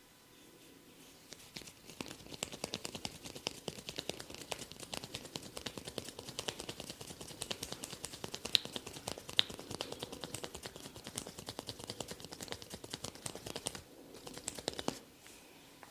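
Hands patting and rubbing over an oiled scalp and hair in a head massage, making a rapid, irregular run of soft taps and crackles that stops briefly near the end.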